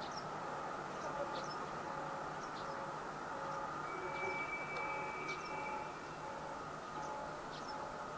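KiHa 183 series diesel train running away into the distance, a faint steady hum, with small birds chirping now and then. A faint ding repeats a little more than once a second, and a thin steady high tone sounds for about two seconds midway.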